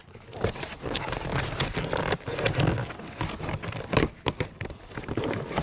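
Packaging being crinkled and torn open by hand, a run of irregular crackles and rustles.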